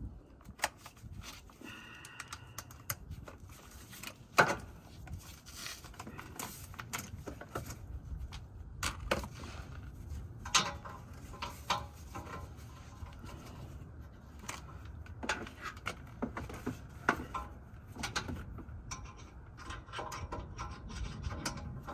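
Metal hand tools clinking and knocking: socket extensions and a socket wrench being handled and fitted, in scattered sharp clicks with one louder knock about four seconds in.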